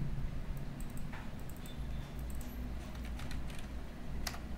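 Computer keyboard keystrokes and mouse clicks, a scattering of separate taps with the sharpest near the end, over a steady low hum.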